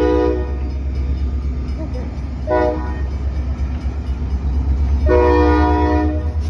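Freight train's diesel locomotive air horn sounding a chord over a steady low rumble. One blast ends just after the start, a short blast follows about two seconds later, and then a longer blast of about a second, the end of a long-short-long pattern typical of a grade-crossing signal.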